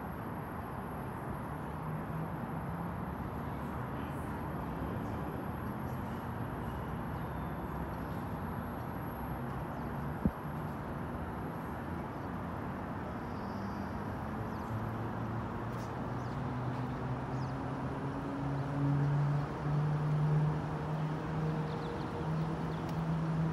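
Aerial tram haul ropes running over the station sheaves as a cabin pulls away, over a steady outdoor hiss. A low hum builds and rises in pitch from about two-thirds of the way in as the tram picks up speed, and one sharp click sounds near the middle.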